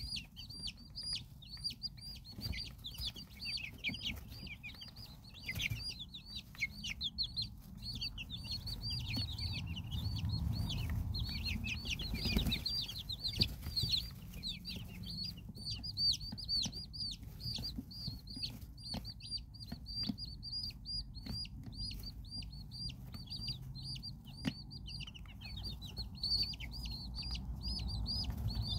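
A brood of silkie chicks peeping continuously: many short, high chirps a second, overlapping. Scattered light taps and scratches run underneath.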